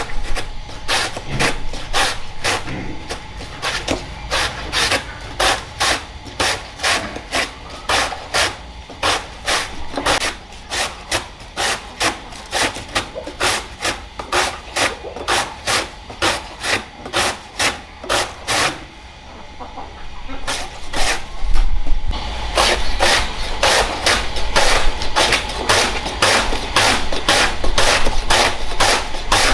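A two-handled blade slicing through a fresh banana stem into thin discs: a steady run of crisp cutting strokes, about two to three a second. The strokes pause briefly about two-thirds of the way in, then come faster and louder.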